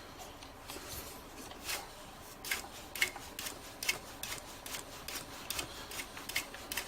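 Faint handling noises: scattered light clicks and a few short rubbing scrapes at irregular times, as of small equipment and test leads being handled.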